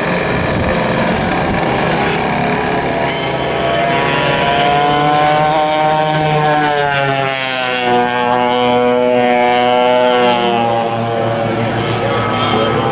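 Vintage racing kart engine running hard on track, its pitch dropping as it backs off about halfway through and then climbing again as it accelerates.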